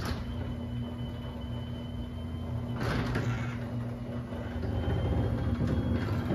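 LiftMaster 8360 DC chain-drive garage door opener running, raising a sectional door: a steady motor hum with a faint high whine, and a brief clatter about three seconds in.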